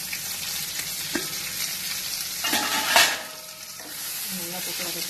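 Sliced onions frying in hot oil in a pan, sizzling steadily as a spatula stirs them, with a louder scrape and sizzle about three seconds in.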